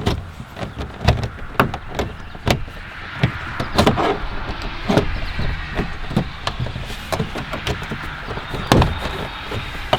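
Plastic door trim panel of a 2007 Honda Civic being pried off the door with a plastic trim tool: irregular sharp clicks and knocks as the retaining clips pop and the panel flexes, the loudest near the end.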